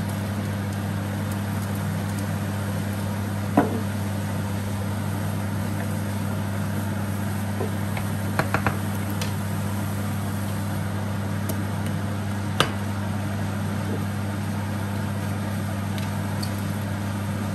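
A steady low machine hum with a few light clicks: one, then three in quick succession, then one more.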